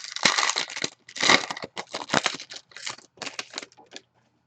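A trading-card pack wrapper crinkling and tearing as a pack is ripped open, in a run of irregular crackly bursts that thin out near the end.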